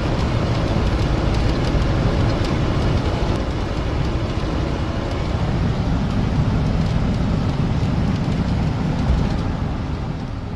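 Steady, loud rumbling noise, heaviest in the low end, fading away near the end.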